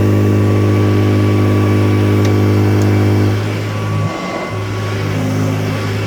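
Vintage Kirby Model 519 upright vacuum cleaner running with a loud, steady low hum. A little past three seconds in its sound thins and gets quieter, with a short dip about a second later, as the load on it changes.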